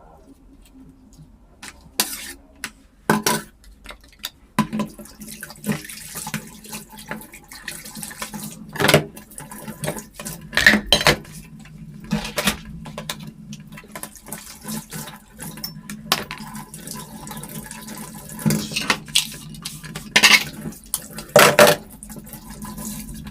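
Kitchen clatter: dishes and metal utensils knocking and clinking many times at irregular moments, over a low steady hum.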